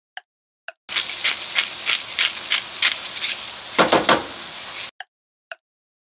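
A crisp ticking, about two ticks a second, over dead silence, like a clock or timer effect. About a second in it gives way to four seconds of food sizzling in a hot pan, with repeated scraping strokes about three a second and a louder clatter near the end. The sizzle cuts off abruptly and the ticking resumes.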